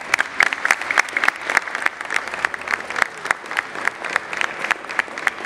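Audience applauding: steady clapping from a small crowd, with the separate claps easy to pick out.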